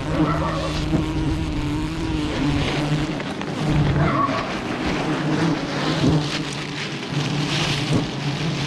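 Honeybees buzzing around their exposed comb: a steady, droning hum of many bees close to the microphone.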